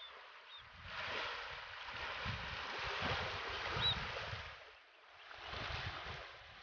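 Small waves washing in over a shallow, stony shore in two swells, with a couple of short high calls from small wading birds.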